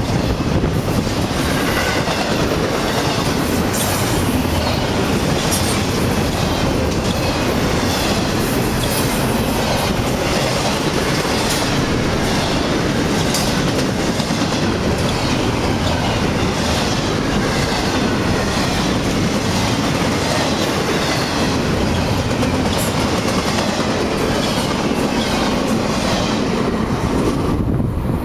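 Double-stack intermodal freight cars rolling past: a steady rumble with the wheels clacking over rail joints.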